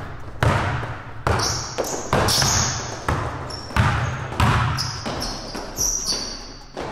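A basketball dribbled repeatedly on a hardwood court, a bounce roughly every half second to second. From about a second in, sneakers squeak in short, high-pitched chirps on the floor.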